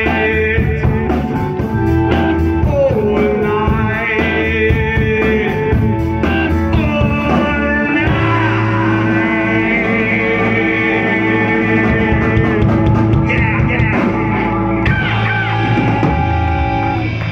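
Live rock band playing: electric guitar, bass, keyboard and drum kit, with a singer. About eight seconds in the band moves to long held chords, and a guitar bends notes near the end.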